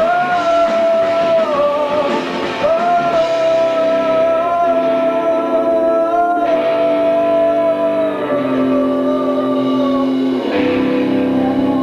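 Live rock band playing: a male singer holds long notes over electric guitar and drums, and the chords change about ten seconds in.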